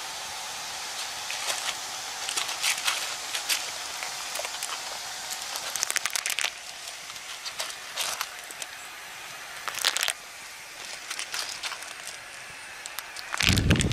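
Clams being dropped into a rock-boiled soup in a deer-hide pot, their shells clicking and clattering in a string of sharp ticks, over a steady hiss.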